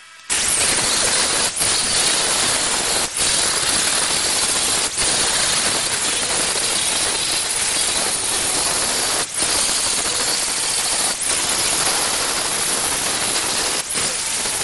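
Angle grinder with an abrasive disc grinding the edge of a thick mild steel block, a steady harsh grinding with a few brief dips as the disc eases off the metal.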